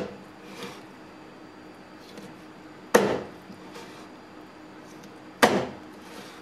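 Kitchen knife chopping through a smooth flutemouth and striking the wooden cutting board twice, about two and a half seconds apart.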